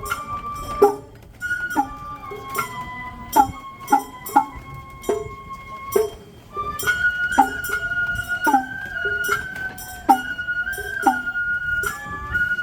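Japanese festival hayashi: a shinobue bamboo flute plays a held, stepping melody over regular percussion strikes, about two a second.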